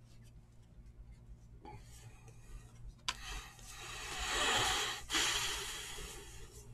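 A long breath close to the microphone: a drawn-in breath that swells for about two seconds and stops sharply, then a breath out that fades away. Faint clicks of cards being handled sit under it.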